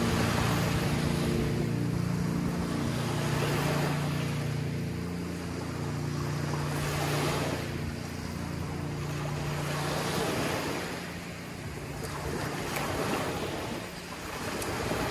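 Small waves breaking and washing up a sandy beach in surges a few seconds apart, with a low steady hum underneath that fades out after about ten seconds.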